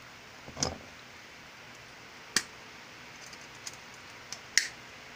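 Sparse clicks and taps from handling a floppy drive's stamped sheet-metal chassis with pliers: a dull knock about half a second in, a sharp click near the middle, faint ticks after it, and the loudest sharp click near the end.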